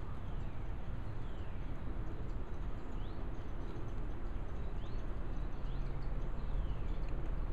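Outdoor background of a steady low rumble with faint, short, high bird chirps, some rising and some falling, every second or two.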